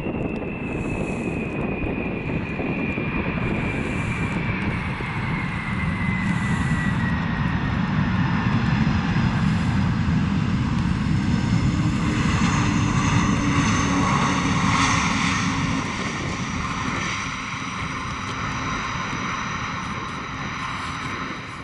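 Boeing 747-400ERF freighter's four jet engines on the landing rollout. A high whine falls slowly in pitch over the first several seconds. Then the engine noise swells to its loudest about halfway through as the aircraft rolls past, and eases off near the end.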